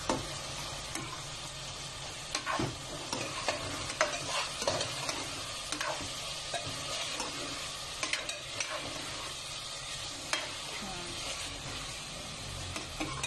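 Tofu and broccoli sizzling in a non-stick wok while a metal spatula stirs and turns them, scraping and tapping the pan at irregular moments over a steady frying hiss.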